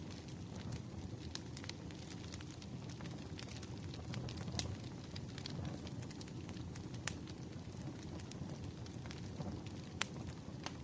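Wood fire burning, with a steady low rumble and many irregular sharp crackles and pops, a few louder pops about four and a half, seven and ten seconds in.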